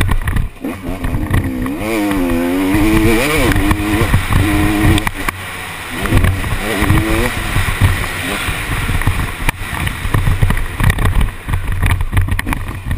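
KTM 250 SX two-stroke motocross engine under riding load, its pitch rising and falling again and again as the throttle is opened and rolled off over the track. It dips briefly twice, near the start and about halfway through.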